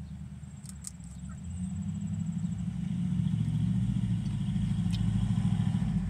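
A motor vehicle's engine running with a low, steady hum that grows louder over the first few seconds. A faint high insect-like trill and a few small clicks sit over it.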